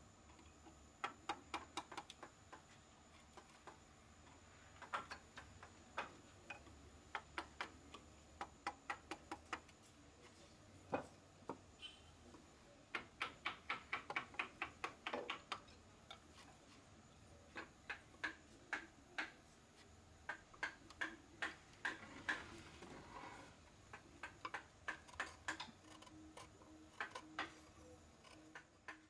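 Wooden mallet tapping a wood-carving chisel into a solid wood block, paring out the carving. Light taps come in quick runs of about four or five a second, with short pauses between runs.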